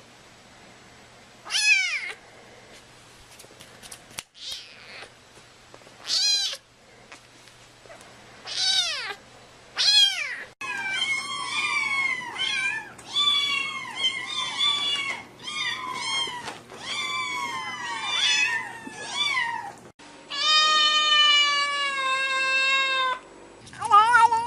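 Domestic cats meowing: a few separate meows, then a quick run of short falling meows at about two a second, and one long, drawn-out meow near the end.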